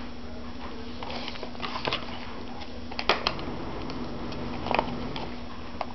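Faint handling noise: a few soft clicks and rustles, over a steady low hum.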